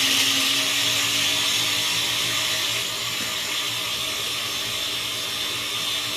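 A countertop blender running steadily, liquefying a thin mix of achiote paste, garlic, orange juice and vinegar. It gets slightly quieter about three seconds in.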